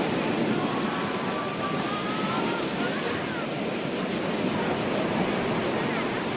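Beach ambience: a steady wash of surf, with a fast, evenly pulsing high insect chirr over it and a few faint whistled bird calls.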